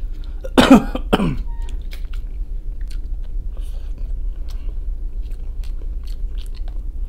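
A man coughs twice in quick succession about half a second in, then bites into a boiled potato and chews, with small scattered mouth and chewing clicks.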